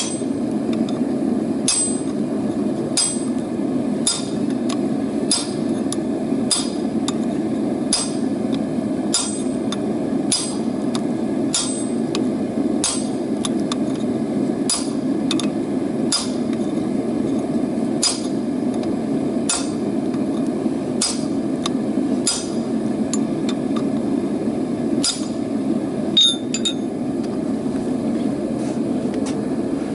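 Hand hammer striking hot rebar on an anvil in a steady rhythm of about one and a half blows a second, each with a short metallic ring, over a steady roar. The blows thin out near the end, with one louder clink.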